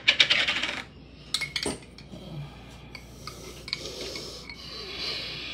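Tableware clattering briefly, then two single clinks, then a spoon scraping jelly out of a jelly jar.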